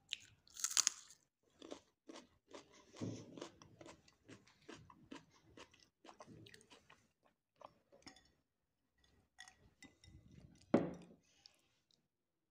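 Close-up eating sounds: a sharp crunchy bite into raw green pepper about a second in, then steady crunchy chewing with many small crackles. A single louder knock near the end.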